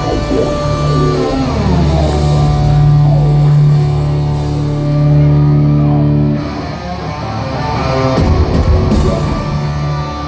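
Live hard rock band playing loud, with heavily distorted electric guitars and drums; the sound dips briefly about six and a half seconds in, then builds again.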